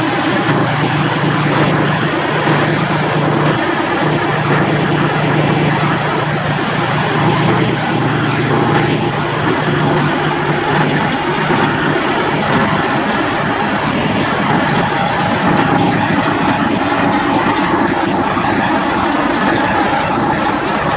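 Diesel semi-truck engines idling in a steady, loud drone.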